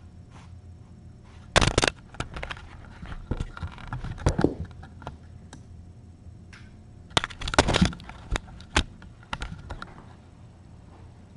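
A cat bumping and rubbing against a camera right at its microphone: loud, crackly bursts of scraping and knocking, the first about one and a half seconds in, then more around four and eight seconds.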